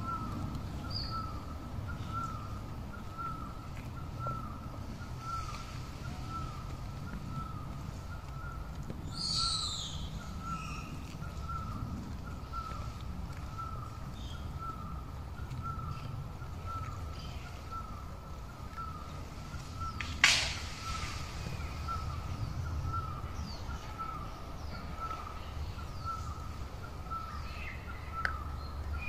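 Woodland ambience: a thin high chirp repeated a little faster than once a second, over a low rumble. A short higher call comes about nine seconds in, and a sharp knock about twenty seconds in.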